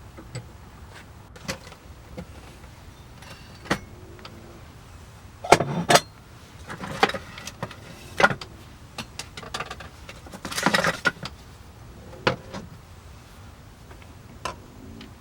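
Irregular clicks, knocks and clatter of objects being handled, the loudest a little over five seconds in, with a longer scraping rustle around ten to eleven seconds.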